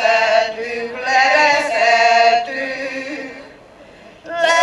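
Women's folk choir singing a Hungarian folk song unaccompanied. The singing dies away about three and a half seconds in and starts again just before the end.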